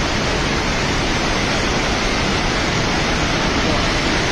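Floodwater of a swollen river rushing past in a loud, steady, unbroken roar.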